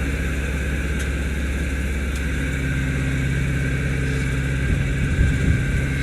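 Tractor engine running at a steady speed, with a brief uneven low rumble about five seconds in.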